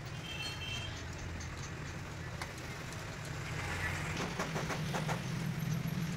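Steady low engine hum, with a quick run of clicks or knocks about four to five seconds in.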